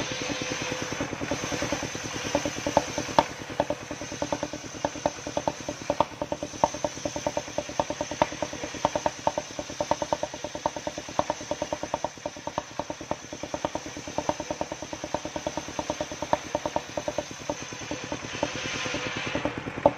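Engine-driven circular sawmill (mesin serkel) running steadily while a long albasia (sengon) log is ripped into a beam: the engine's even pulse with a brisk regular ticking, about six a second, and the blade's cutting hiss growing brighter near the end.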